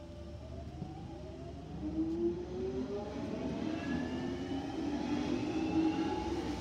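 London Underground 1996 Stock Jubilee line train pulling out of the station. Its traction motors whine in several tones that rise steadily in pitch as it accelerates, growing louder from about two seconds in.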